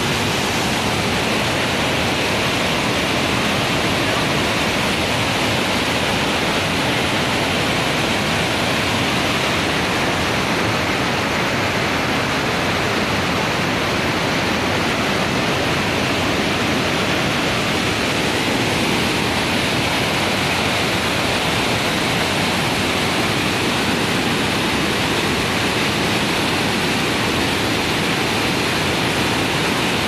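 A waterfall swollen with muddy flash-flood water pours over rock ledges in a loud, steady rush of water noise.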